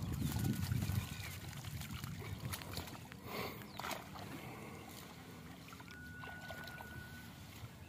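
Water sloshing and splashing as a cast net full of fish is dunked and swished in shallow water, loudest in the first second, with a couple of sharper splashes around the middle.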